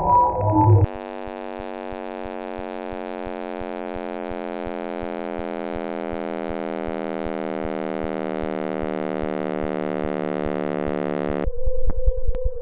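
Sonified space data: a buzzy electronic tone that slowly falls in pitch, over a steady train of rapid clicks. About a second before the end it switches abruptly to a different sonification, a steady hum with sharp ticks.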